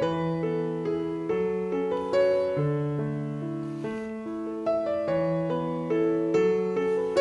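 Gentle background piano music: a slow melody of single notes over held lower notes.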